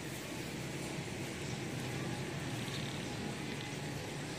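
Steady background hum of distant road traffic, with no distinct events.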